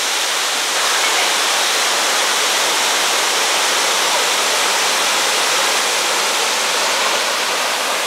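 Multi-tiered waterfall cascading over stepped rock into pools: a loud, steady rush of falling water.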